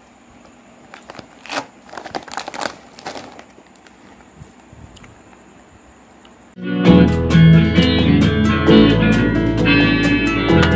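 Faint rustles and clicks of handling, with a faint steady high whine. About seven seconds in, loud guitar music cuts in suddenly, with a steady plucked beat.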